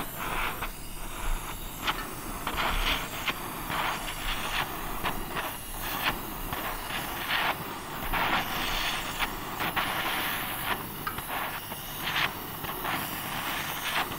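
Oxy-fuel gas torch flame hissing steadily as it heats a steel sheet and melts tin body solder onto it, the hiss swelling and dipping unevenly with short crackles.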